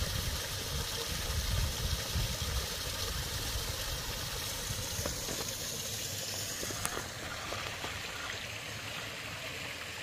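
Mountain stream running under ice and snow: a steady rush of flowing water, with a low rumble on the microphone in the first half that eases off about halfway through.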